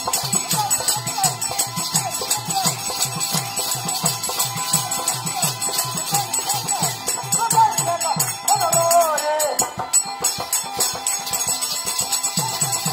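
Folk theatre music: a drum beats steady bass strokes that fall in pitch, about three a second, under constant jingling of bells. About seven seconds in, a wavering sung line rises over it. The drum drops out for a couple of seconds and comes back near the end.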